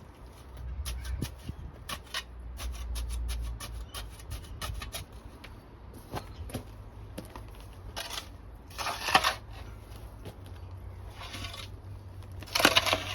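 Shovel working soil while backfilling a trench: a run of small clicks and knocks, then two louder scrapes, about nine seconds in and again near the end.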